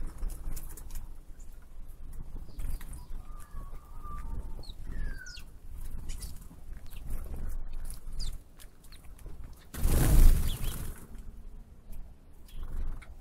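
Outdoor ambience of scattered short bird chirps over a steady low rumble of wind on the microphone. About ten seconds in there is a loud rush of noise lasting about a second.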